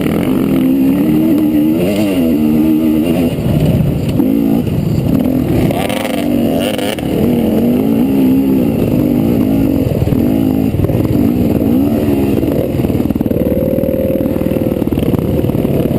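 Two-stroke trail bike engine heard from the rider's helmet camera, revving up and down constantly with throttle changes over rough terrain, and holding a higher pitch for a moment near the end.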